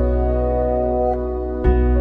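Soft new-age background music: held keyboard chords over a deep bass, with a new chord struck near the end.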